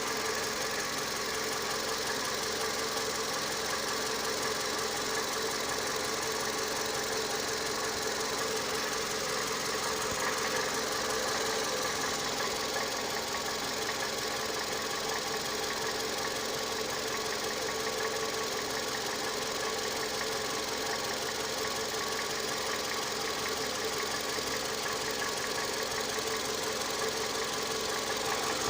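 Toyota 2AZ-FE 2.4-litre four-cylinder engine idling steadily with a metallic knock.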